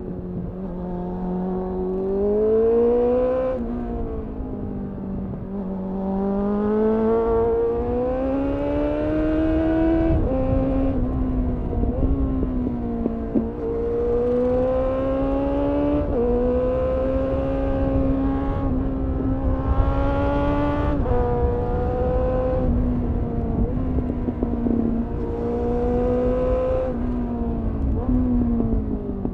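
2001 Suzuki GSF 600 Bandit's inline-four engine through a GPR Furore Nero aftermarket exhaust, pulling hard under acceleration. Its pitch climbs over a couple of seconds and then drops sharply at each gear change or roll-off, again and again through a run of bends, with wind noise on the microphone underneath.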